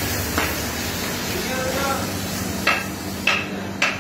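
Steady background noise with a low hum, and three sharp clicks or knocks in the second half.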